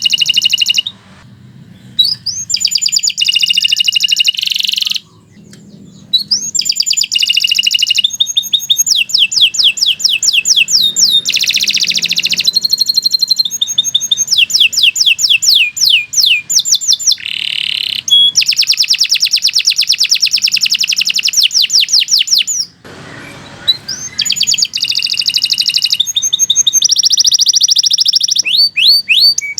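Domestic canary singing a long, loud song of fast rolling trills and rapid repeated high notes, phrase after phrase, with short breaks about a second in, about five seconds in, and near twenty-three seconds in.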